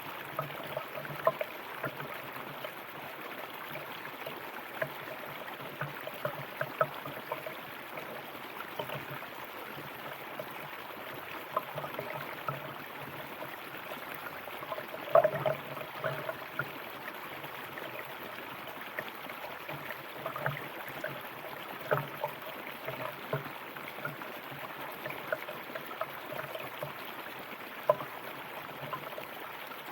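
River water running over stones, a steady rush with frequent small splashes and gurgles, the biggest splash about halfway through.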